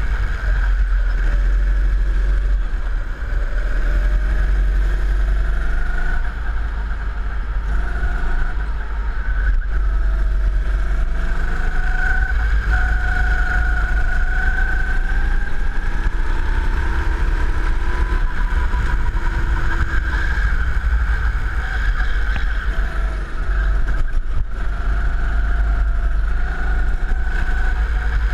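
Go-kart engine heard on board, running continuously at speed, its pitch rising and falling as the kart accelerates out of corners and slows into them, over a heavy low rumble.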